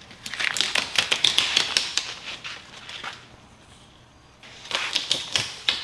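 Rapid crackling clicks of a razor blade cutting a self-adhesive rubber bow-protector strip. The clicks pause about three seconds in, then start again.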